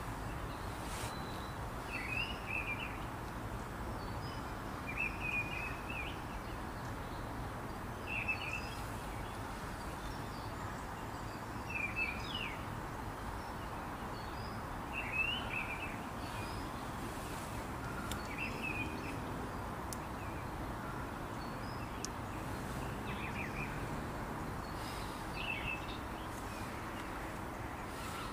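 A bird calling over and over with short chirps, one every two to three seconds, above a steady outdoor background hiss.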